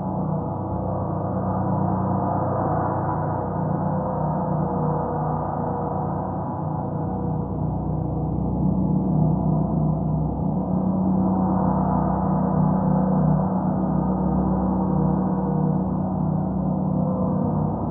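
Meditation gongs sounding continuously as a dense wash of many overlapping low tones, with no single distinct strike. The sound swells somewhat louder about halfway through.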